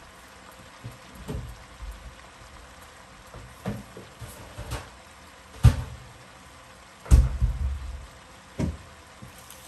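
Pork and napa cabbage lumpia filling cooking down in a frying pan: a faint steady sizzle with scattered pops, and a few dull knocks and thumps, the loudest a little past halfway and a short low rumble a second later.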